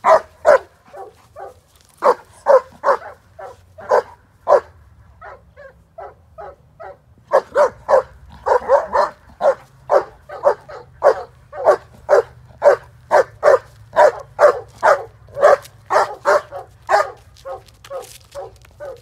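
A young (11-month-old) protection dog barking repeatedly at a decoy who is acting suspiciously. The barks are spaced out at first, turn softer and sparser about five to seven seconds in, then come fast and steady at roughly two to three a second.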